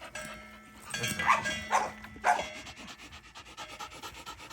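Sounds from a pit bull close by, with three short sharp noises about a second, a second and three-quarters, and two and a quarter seconds in.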